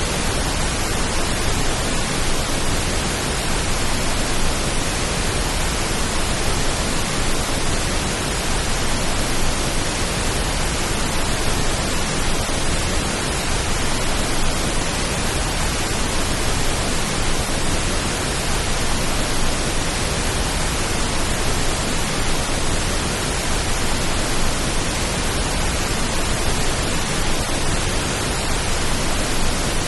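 Steady pink noise: an even, unchanging hiss, made as a rain-like calming sound.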